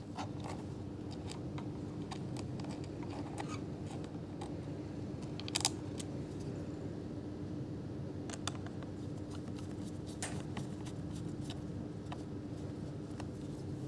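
Scattered light clicks and taps over a steady low hum, with a sharper double click about five and a half seconds in.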